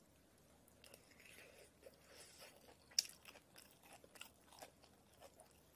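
Close, faint chewing and crunching of a mouthful of bomdong (spring cabbage) bibimbap, with one sharp click about three seconds in.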